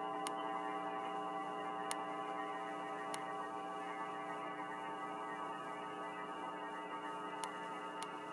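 A steady, dense droning hum of many held tones, with a few faint sharp clicks.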